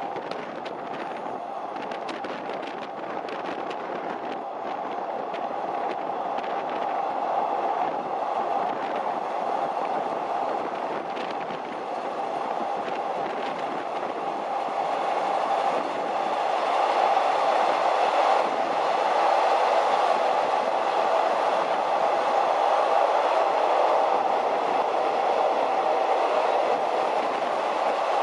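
Passenger train running at speed on rails, a steady rumble with a persistent hum, with clicks of the wheels over the rails in the first few seconds. It grows louder from about halfway through and then holds steady.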